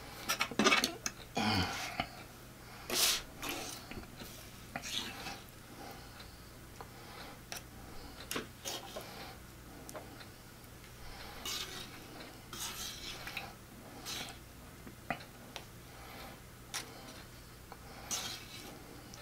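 Metal fork clinking and scraping against a tray while scooping meat into a flour tortilla, in irregular short clicks and scrapes. The loudest clinks come about half a second in and around three seconds in.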